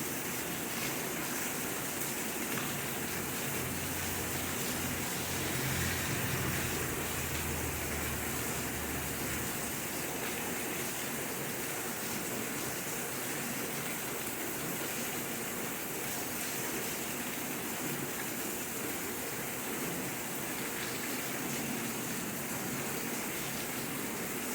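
Steady rain falling. A low rumble sits under it for the first nine seconds or so, then stops.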